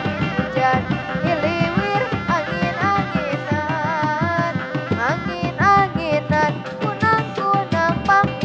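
Sundanese reog ensemble playing live: dogdog hand drums beat a busy interlocking rhythm under a melody of wavering, sliding notes.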